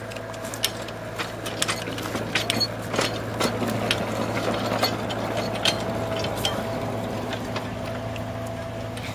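Handcar rolling along the rails: a steady low rumble with many sharp, irregular clicks and rattles from the wheels and the pump mechanism.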